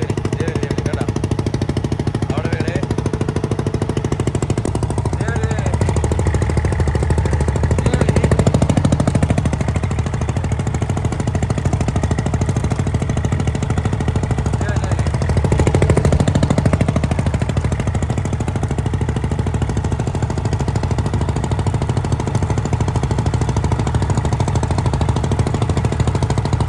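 Fishing boat's engine running steadily with a rapid knocking beat, swelling louder twice for a second or two.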